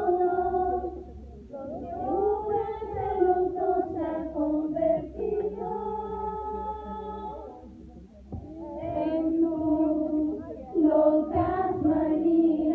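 A woman singing into a microphone, holding long notes, with a short breath pause about eight seconds in.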